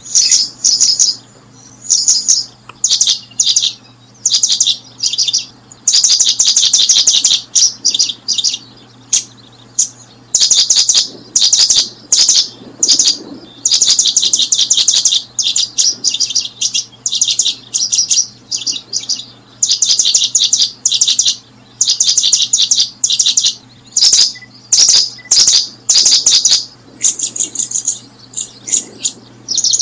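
Small birds chirping in rapid runs of high notes, in bursts of about half a second to two seconds that follow one another with short gaps.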